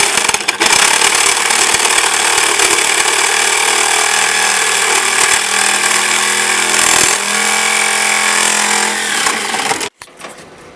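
Electric power tool running under load on steel for nearly ten seconds, a loud hissing whine with a dip in pitch about seven seconds in, then cutting off abruptly.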